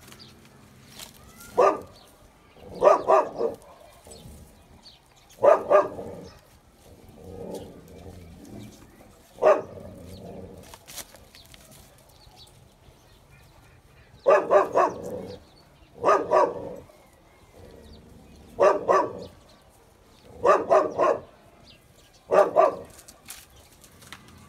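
A dog barking in about nine short bouts, each under a second, a couple of seconds apart.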